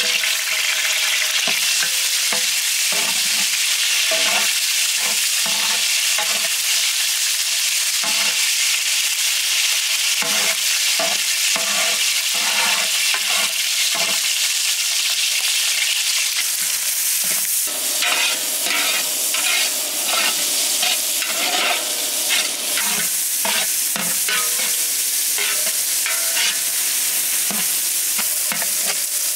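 Green chillies, and later sliced onions, sizzling in hot oil in a large aluminium pot while a metal ladle stirs and scrapes the pot in repeated strokes. The sizzle changes character about two-thirds of the way through, and the strokes come thicker after that.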